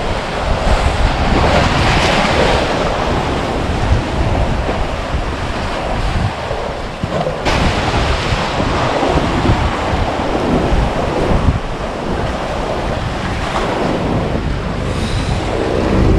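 Sea waves surging and washing through the gaps between concrete tetrapod breakwater blocks, with wind buffeting the microphone.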